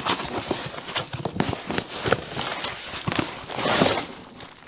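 Cardboard shipping box being handled and tipped: irregular knocks and scrapes of the cardboard, with a longer rustle of plastic bubble wrap near the end as the wrapped contents slide out.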